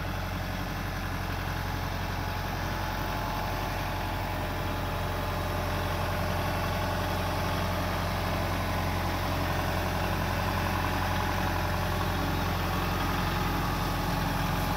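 Kubota M5660SU tractor's four-cylinder diesel engine running steadily while the tractor moves a loaded cart on its loader forks, growing gradually louder.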